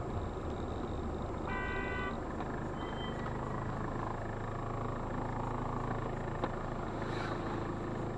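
Steady car engine and road noise heard from inside a slow-moving car's cabin, with a short horn toot about a second and a half in and a single sharp click later on.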